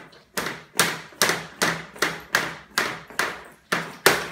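Jump rope being skipped on a hard floor: a steady run of sharp slaps, about two and a half a second, beginning about half a second in.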